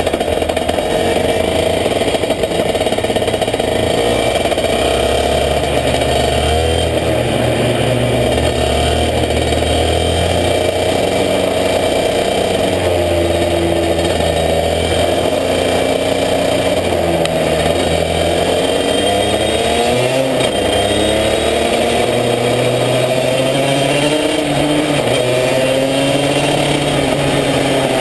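Racing kart's two-stroke engine heard onboard while lapping, its pitch falling and climbing again and again as the driver lifts off into corners and accelerates out of them.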